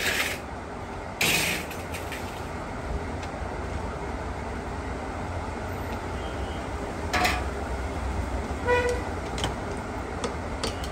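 Workshop background with street traffic: a steady low rumble, a few sharp knocks, and a short vehicle horn toot about nine seconds in.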